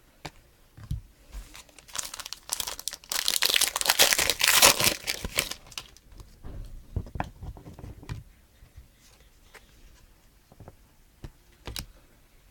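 A trading-card pack wrapper being torn open and crinkled, loudest for a few seconds about two seconds in, followed by scattered small clicks and taps as the cards are handled.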